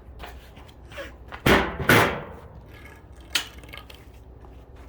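An iHome alarm clock radio, dead after a salt-water soaking, banged twice: two loud knocks about half a second apart, then a single sharp click a second and a half later.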